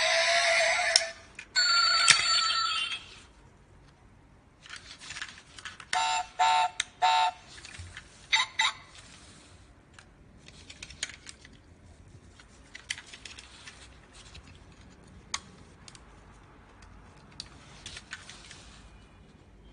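Diecast Audi R8 V10 Plus model's built-in sound unit playing electronic sound effects: an engine-like sound that stops about a second in, a short steady tone, then a few chime-like beeps around six and eight seconds in. After that come small scattered clicks as its doors and hood are worked.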